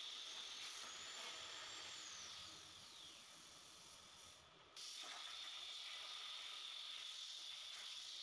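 CNC plasma cutter cutting steel plate: a steady hiss of the plasma arc. The hiss fades out about two and a half seconds in, with a faint falling whine, while the torch moves to its next cut. It starts again abruptly just before five seconds in.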